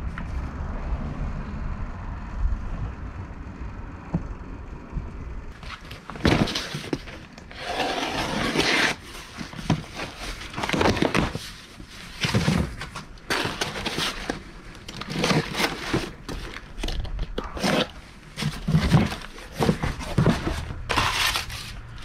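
Handling noise: a low steady rumble for about six seconds, then a long run of irregular scrapes, knocks and rustles as a unit and its parts are handled.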